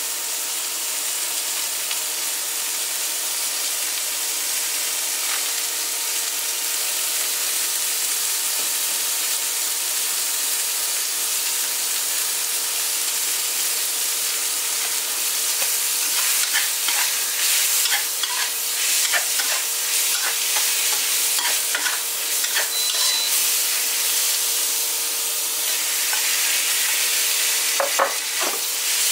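Winter bamboo shoots and cured pork stir-frying: a steady sizzle. From about halfway through come frequent clicks and scrapes of a utensil stirring in the pan.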